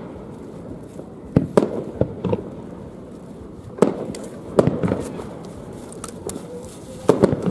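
Aerial fireworks going off in a display: sharp bangs in quick clusters, several about one and a half to two seconds in, more around four to five seconds, and a rapid run of three near the end, each trailing off in a rumbling echo.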